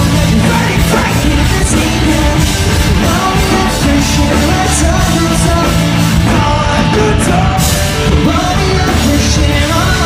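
Live pop-punk band playing a song at full volume: distorted electric guitars, bass and drums, heard from among the audience at a loud show.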